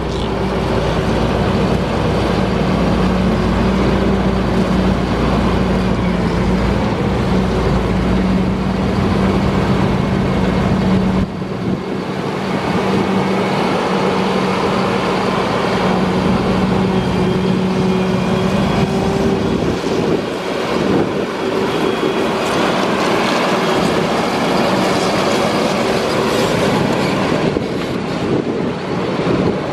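A Challenger MTC775E rubber-tracked tractor's diesel engine running with a steady hum as the tractor drives about, with running noise from the tracks. The sound changes abruptly about a third of the way in, losing its deepest part.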